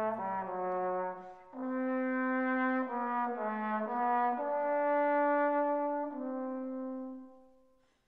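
Background music: a slow melody of long held notes in several parts, fading out near the end.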